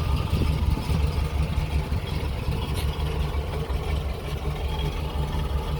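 1969 Camaro SS's numbers-matching L48 350 small-block V8, with a Quadrajet carburettor, idling steadily with a low rumble.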